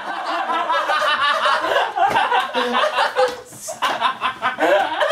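A group of young men laughing loudly together, several voices overlapping in chuckles and cackles.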